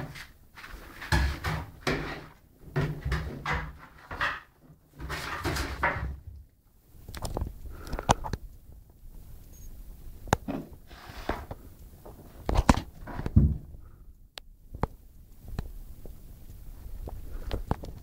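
A beagle scuffling and bumping about excitedly on the floor. A dense run of rubbing and scuffling fills the first few seconds, then scattered knocks and taps follow.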